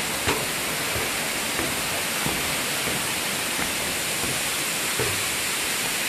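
Waterfall rushing: a steady, even hiss of falling water.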